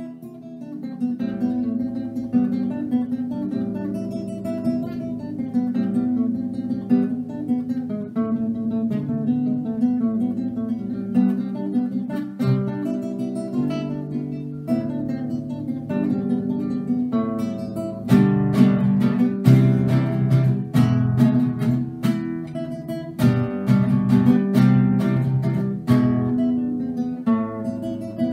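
Solo classical guitar playing a piece with picked single notes and chords. About two-thirds of the way through it turns to louder strummed chords.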